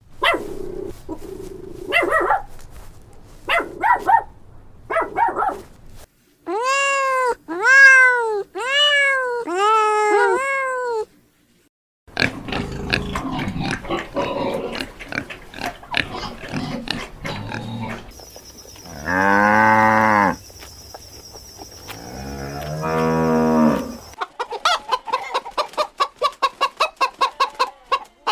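Several different animal calls in turn. About six seconds in there is a run of five rising-and-falling calls, around nineteen seconds a long low call, and near the end rapid repeated calls at about three a second.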